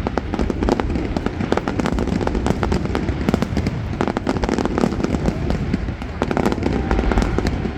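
Fireworks going off continuously: a rapid, dense crackling of many small bursts over a constant low rumble of shell explosions.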